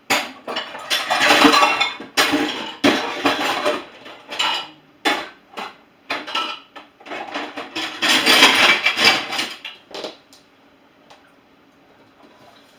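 Dishes and cutlery clattering and clinking as they are stacked into a dishwasher, in dense runs of knocks that die away about ten seconds in.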